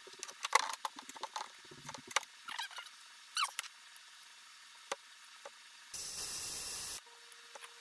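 Small aluminium parts and a pneumatic rivet squeezer clicking, clinking and rattling as a nut plate and rivet are set in the jaws, with a couple of short squeaks. About six seconds in, a one-second hiss of compressed air as the squeezer sets the rivet.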